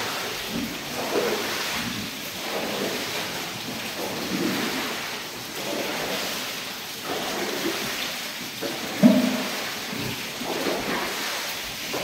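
Steady hiss of falling water in a pig pen, with pigs grunting at times and one sharper, louder sound about nine seconds in.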